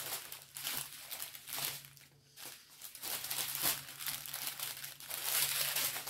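Crinkling of small plastic bags of diamond-painting beads being handled, in irregular bursts with a short lull about two seconds in.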